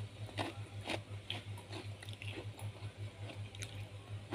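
Chewing a mouthful of crisp-fried corn fritter (bakwan jagung), a short crunch with each bite about twice a second, over a steady low hum.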